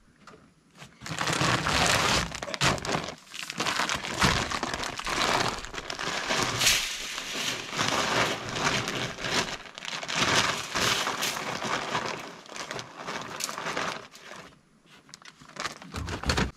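Continuous rustling and crinkling that starts about a second in and dies down near the end.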